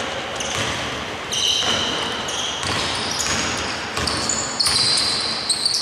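Basketball play on an indoor court: a ball bouncing and repeated short high-pitched squeaks from sneakers on the floor.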